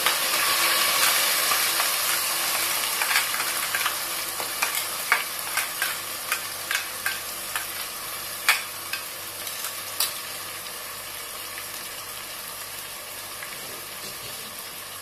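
Green masala paste hitting hot oil and ghee with browned onions in a pot, sizzling strongly at first and slowly dying down to a steadier, quieter sizzle. A run of sharp pops and ticks comes through the middle.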